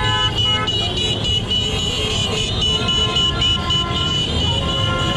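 Car horns honking in celebration amid slow street traffic: a short honk at the start and a long held horn from about halfway in, over a constant low rumble of engines and wind.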